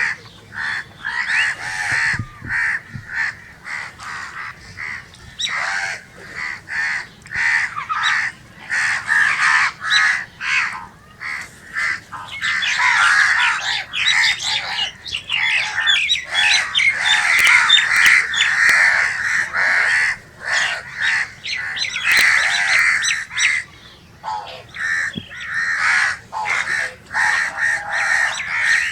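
Crows cawing over and over, harsh calls following one another quickly and often overlapping, densest in the middle stretch.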